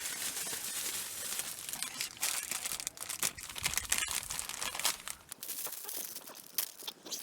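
Dense crinkling and rustling with many small clicks, like something being crumpled or torn, easing off about five seconds in.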